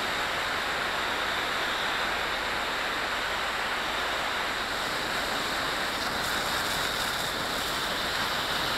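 Steady hiss of water from a fire hose's quick-attack line spraying onto burning branches.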